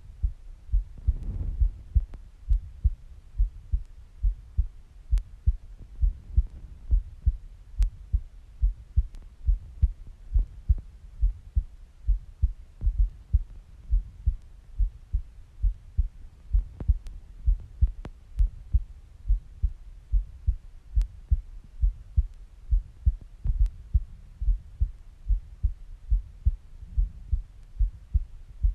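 A woman's heartbeat, picked up close by a microphone: a steady, even rhythm of low thumps.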